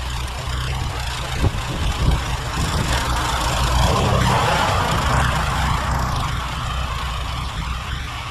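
John Deere 1032 snowblower's engine running steadily under load in deep snow, with a rush of snow being churned and thrown that swells through the middle. Two sharp knocks early on.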